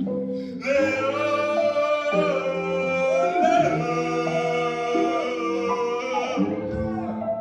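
Male singer holding long, wavering sung notes without words over sustained keyboard chords in a live song.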